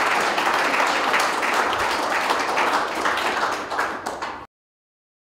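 Audience applauding, thinning a little near the end, then cutting off abruptly about four and a half seconds in.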